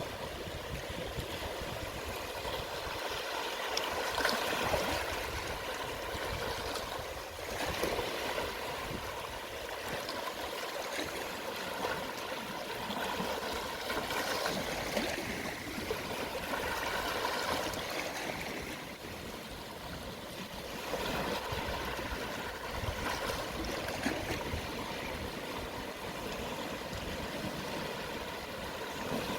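Gentle sea waves at low tide washing onto the shore, a continuous wash of water that swells and eases every few seconds.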